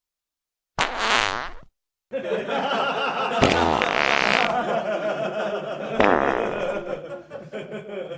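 Diarrhea fart sound effects. A short fart about a second in, then after a brief pause a long, continuous sputtering fart of about six seconds, with sharper blasts about three and a half and six seconds in.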